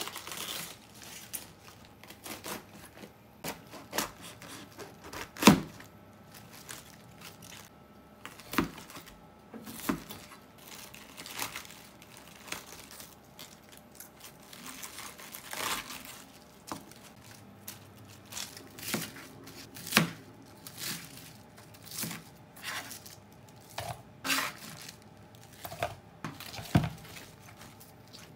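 Fresh cabbage leaves being torn and pulled off the head: irregular crisp tearing and crunching, with sharp knocks on the cutting board, the loudest about five seconds in.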